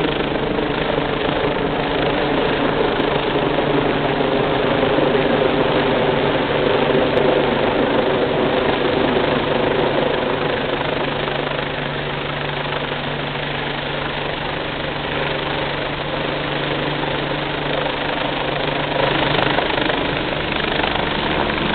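Twin-engine BK 117-type air-ambulance helicopter running steadily close overhead as it comes in to land: rotor and turbine noise with a low steady drone, swelling and easing a little as it moves, and growing sharper near the end as it comes closer.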